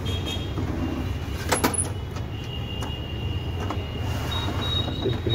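HP Smart Tank 500 inkjet printer running its start-up initialization after a new printhead has been fitted. Its motors run with a steady hum and a thin whine that shifts in pitch a few times, and there is one sharp click about a second and a half in.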